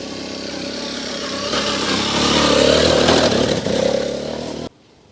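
Honda NXR 150 Bros motorcycle's single-cylinder four-stroke engine running and revving, getting louder through the middle, then cutting off suddenly near the end.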